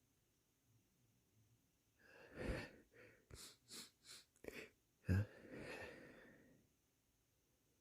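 A person's stifled sneeze: a sharp breath in, about six quick sniffs, then a short held-back sneeze burst just after five seconds, the loudest sound, followed by a long breath out.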